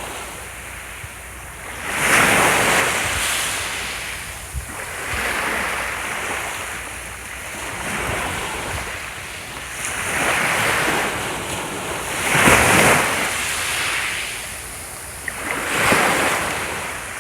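Ocean waves washing onto a shore, each breaker swelling up and hissing away, about every two to three seconds.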